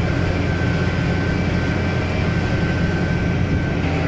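Tractor engine running steadily while pulling a hay tedder: an even low drone with a faint thin whine above it that fades out near the end.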